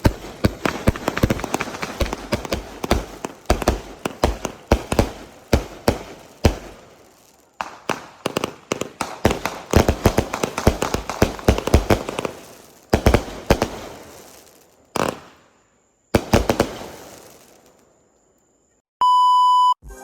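Fireworks going off in rapid strings of sharp bangs and crackles, with a brief break about seven seconds in, then thinning to a few separate bangs and stopping. Near the end a steady electronic beep sounds for under a second.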